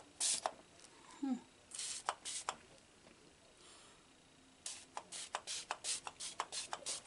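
Finger-pump mist sprayer on a bottle of setting spray, hissing out short spritzes: two or three in the first couple of seconds, then a quick run of short sprays and clicks over the last two seconds. A brief hum from the user comes about a second in.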